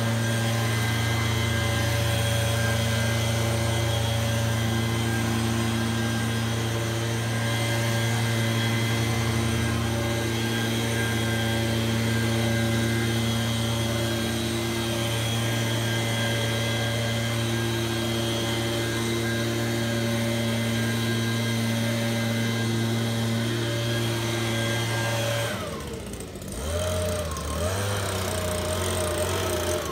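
STIHL BG56 C-E handheld leaf blower's small two-stroke engine running at full throttle, a steady drone with rushing air. About 26 seconds in the throttle is let off and the engine falls to a lower, unsteady idle.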